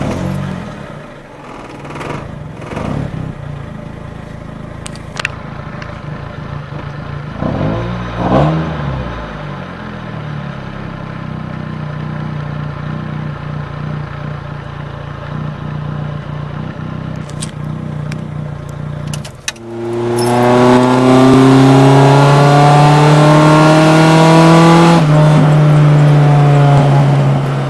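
Nissan Sentra B13's four-cylinder engine running, with a brief blip about eight seconds in. From about twenty seconds it is revved much louder, the pitch climbing slowly, then held steady at high revs to the end.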